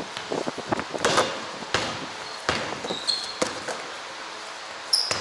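Basketball bouncing on a wooden gym floor in a string of irregular thuds, with a few brief high sneaker squeaks.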